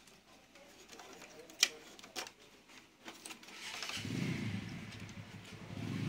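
Light clicks and knocks of the printer's plastic gear-assembly parts being handled, with one sharp click about a second and a half in. From about four seconds, the low rumble of a motor vehicle's engine joins in and carries on.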